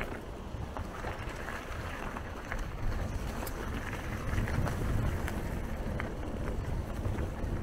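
Wind buffeting the microphone while riding a mountain bike, with the tyres rumbling over a rough trail and scattered small clicks and rattles.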